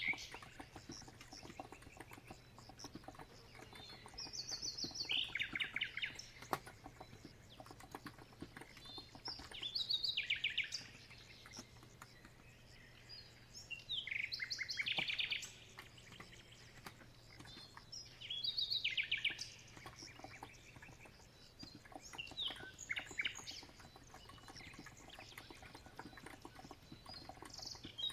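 A songbird singing a short, rapid trilled phrase about every four to five seconds, over soft, steady keyboard typing on a COX Empress electro-capacitive keyboard.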